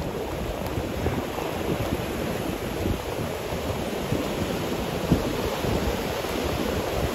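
Ocean surf breaking and washing over a rocky shore, with wind buffeting the microphone.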